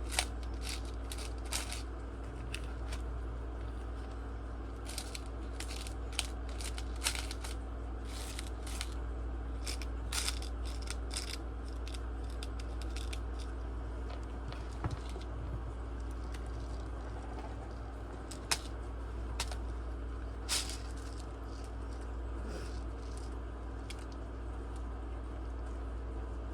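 Tiny laptop screws clicking and rattling as they are picked through by hand in an assortment of screws, light irregular clicks over a steady low hum.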